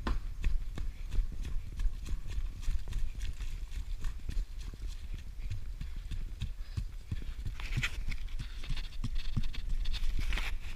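A runner's footsteps striking a soft, muddy woodland trail at about three steps a second, with a steady low rumble of wind on the body-worn camera's microphone. Two hissy puffs of breath come near the end.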